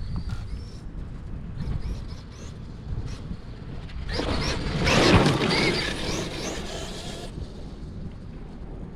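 Large 8S electric RC monster truck driving on grass over steady low wind rumble. About four seconds in it comes close under throttle: its motor whines and its tires rush loudly for about three seconds, then fade.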